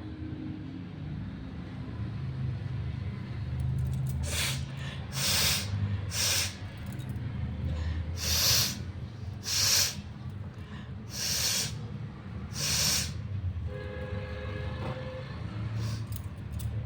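A woman forcing air hard through her nose in about seven short bursts, one to two seconds apart, starting about four seconds in, over a low steady rumble.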